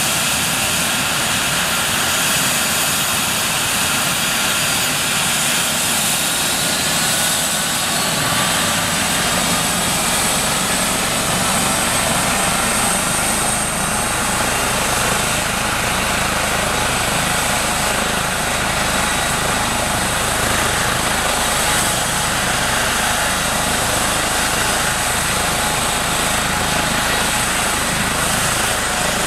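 Eurocopter EC135 helicopter running on the ground: a steady turbine whine with high thin tones over the noise of the turning main rotor and fenestron tail rotor. The low rotor sound grows somewhat stronger about nine seconds in.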